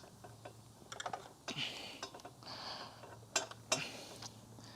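Scattered light clicks, taps and short scrapes of the Kirby Generation 3 vacuum's plastic and aluminum parts being handled and worked loose during disassembly, with two sharper clicks in the second half.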